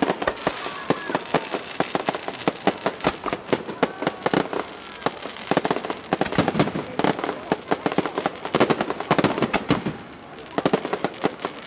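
Aerial fireworks going off in a dense, rapid barrage of bangs and crackles, easing slightly near the end.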